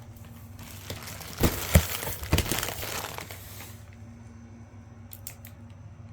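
Packaging being handled and crumpled: a crinkling rustle with a few sharp knocks, dying down about four seconds in.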